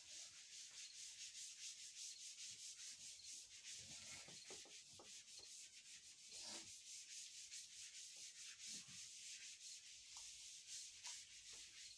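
Faint, quick back-and-forth rubbing of a board duster wiping chalk off a blackboard.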